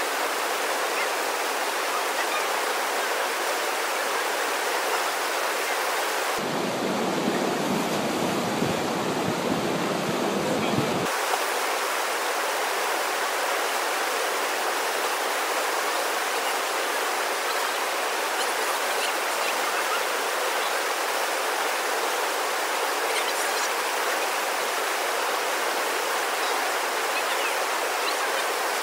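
Steady rush of river whitewater pouring over a standing wave. For a few seconds, from about six to eleven seconds in, the rush takes on a deeper, lower rumble.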